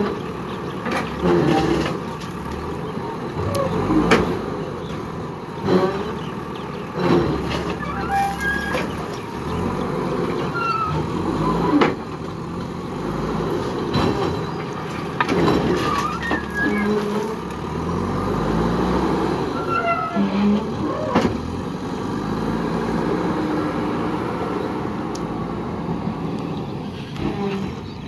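JCB backhoe loader's diesel engine running and working under load while its front bucket dumps gravel into a tipper truck, with repeated sharp knocks and clatter of stones and bucket metal.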